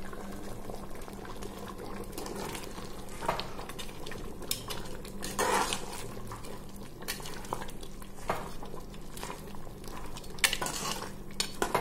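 A spoon stirring thick goat head curry in a pressure cooker, scraping and clinking against the metal pot at irregular moments, with the curry simmering underneath.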